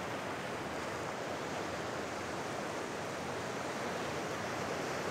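Steady rushing noise of sea surf and wind at the shore, even throughout with no single wave standing out.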